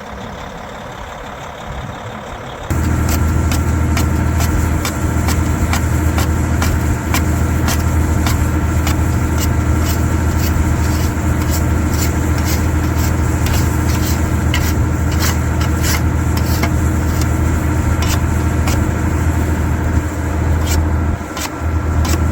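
Caterpillar D8T dozer's C15 diesel idling steadily while it warms up in the cold, overlaid by repeated short scrapes and clicks of a shovel clearing snow and ice off the blade. The engine sound jumps louder about three seconds in.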